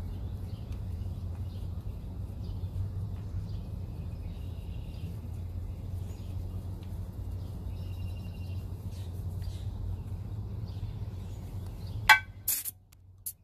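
Steady low outdoor rumble with faint bird chirps. A few sharp clicks come near the end, and the rumble drops away right after them.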